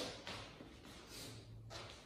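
Soft shuffling footsteps and the rustle of fleece onesies as people move about, with a brief louder swish at the start, over a faint steady low hum.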